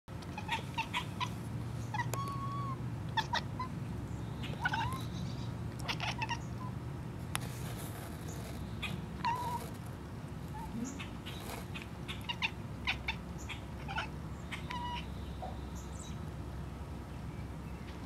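Long-haired tabby cat chattering at birds seen through a window: bouts of quick clicking and short squeaky chirps, broken by pauses.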